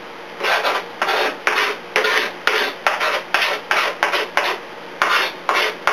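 Kitchen knife chopping fresh green herbs on a cutting board: quick, even strokes at about two to three a second, starting about half a second in.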